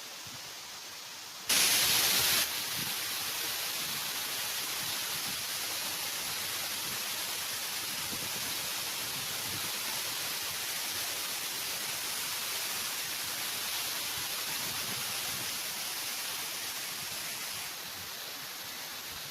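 Steady rushing roar of a waterfall, with a brief louder burst about a second and a half in and a slight drop in level near the end.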